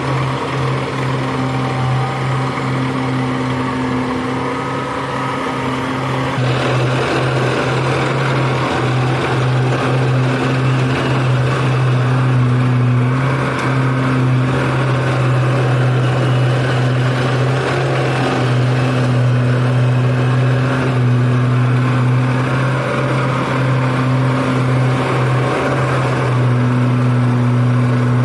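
Engine of a small rice-harvesting machine running steadily with a low hum, growing rougher and noisier about six seconds in.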